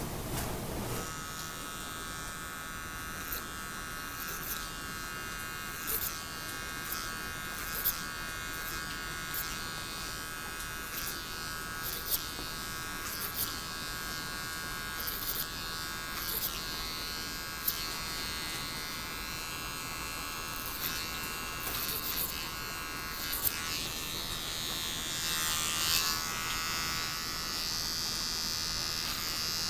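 Electric hair clippers running with a steady buzz during a haircut, with scattered light clicks throughout. The buzz shifts and brightens briefly about 25 seconds in.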